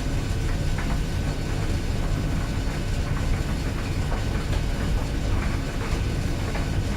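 Clothes dryer running: a steady low rumble of the turning drum, with light irregular clicks and knocks from items tumbling inside.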